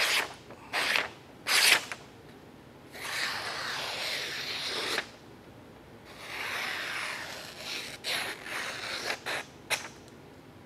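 Freshly sharpened and stropped knife edge shaving hair off an arm, the sign of a razor-sharp edge. It makes short crisp scraping strokes, then two longer scrapes of about two seconds each in the middle, then a quick run of short strokes near the end.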